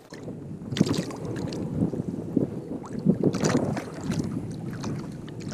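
Water sloshing and splashing against the side of a fishing kayak as a trout is held in the water on a lip grip, with a few sharp knocks against the hull.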